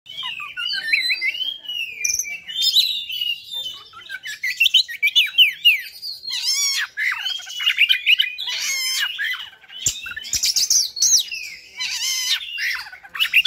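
Oriental magpie-robin (kacer) singing a fast, varied song of sweeping whistles, quick chirps and harsh buzzy notes, almost without pause, in the combative mood that keepers call a 'fighter' kacer.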